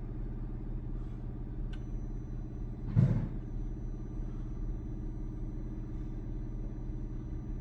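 Kia Forte's engine idling steadily, with a brief louder sound about three seconds in.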